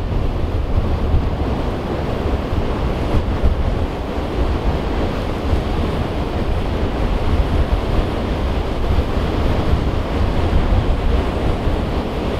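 Wind buffeting the microphone: a steady low rumble with a rushing hiss over it.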